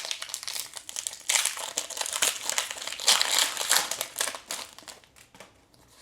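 Foil Pokémon booster pack wrapper crinkling as it is handled and opened, with louder bursts of crackle about a second and a half and three seconds in, dying away near the end.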